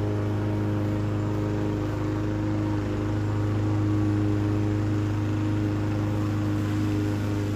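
Petrol lawn mower engine running steadily at a constant speed, with a strong low hum and no change in pitch or level.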